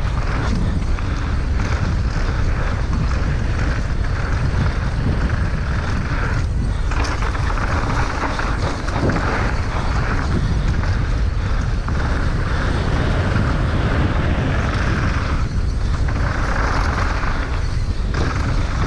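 A downhill mountain bike descending a rough trail at speed: wind rushing over the microphone and the tyres rumbling on dirt and rock, with brief knocks from bumps.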